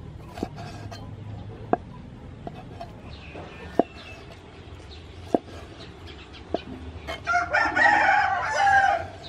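Knife cutting squid into rings on a wooden cutting board, a sharp knock as the blade hits the board every second or so. About seven seconds in, a rooster crows loudly for about two seconds.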